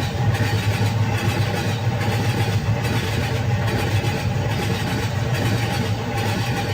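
Freight train running: a steady low rumble with a regular beat a little faster than once a second.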